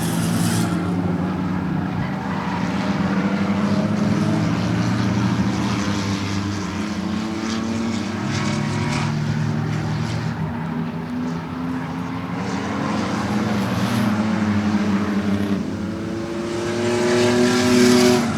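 A pack of six-cylinder stock race cars running at speed on a short asphalt oval, several engines at once, their pitch rising and falling as the cars pass. Loudest near the end, as a car comes by close.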